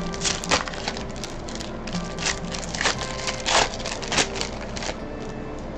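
Foil booster-pack wrapper crinkling and tearing as it is opened by hand, a string of sharp crackles that die down about five seconds in.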